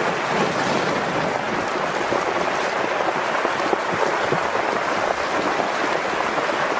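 Heavy rain falling steadily, a dense, even patter with no pauses.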